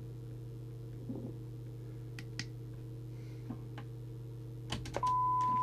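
A low steady hum with a few faint clicks. About five seconds in, the Midland M-Mini CB radio's squelch opens on the test signal, and its speaker gives a loud, steady, single-pitched test tone.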